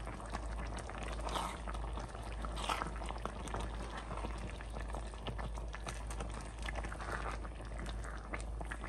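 Pot of okra soup bubbling as it cooks, a steady stream of small pops and crackles. A constant low hum runs underneath.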